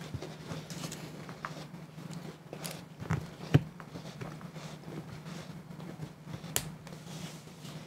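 Faint ticks and small crackles of clear adhesive tape pressed onto and lifted off an iPad's glass screen to pick up dust, scattered irregularly with a sharper click a few seconds in, over a steady low hum.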